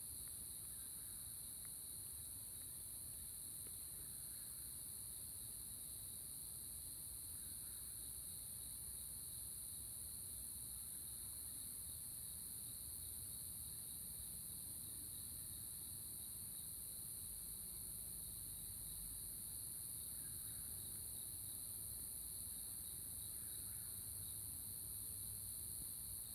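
A steady, high-pitched chorus of crickets chirping, with a faint low rumble underneath from a distant Airbus A320 jet taking off that grows slightly louder toward the end.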